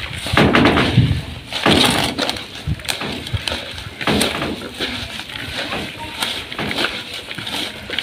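Hand squeezing and kneading finely chopped greens in a plastic basin, giving irregular rustling, crackling strokes. Salt is being worked into the greens to soften them faster.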